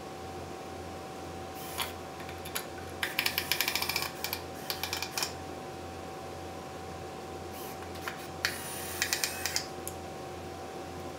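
Cordless driver running screws into a 2x4 stud frame: two short bursts of rapid clicking, about three seconds in and again near nine seconds, with a couple of light knocks of wood and tool before them.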